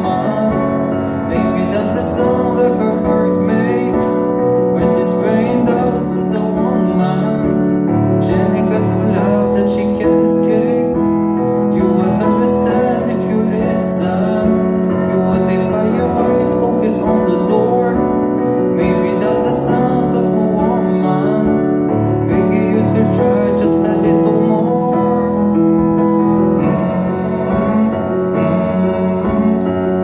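Live piano ballad: a keyboard plays sustained chords through the PA, with a singer's amplified voice over it.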